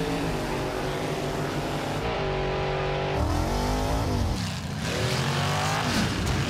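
Race-truck engines revving hard at racing speed, their pitch climbing and dropping several times as they accelerate and back off.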